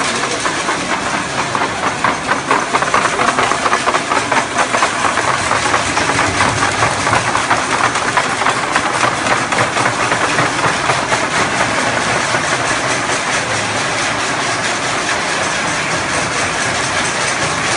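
A dining hall full of people banging forks and spoons on tables and trays and clapping: a dense, continuous clatter of many small knocks, loudest in the first half. It is a one-minute noise protest.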